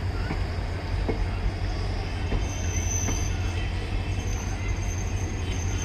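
Diesel locomotive engine running with a steady low rumble. A thin high squeal comes and goes from about two and a half seconds in.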